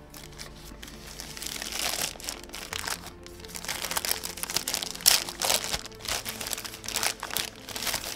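Packing material crinkling and rustling in irregular bursts as it is handled and pulled away, louder after about a second in, over soft background music.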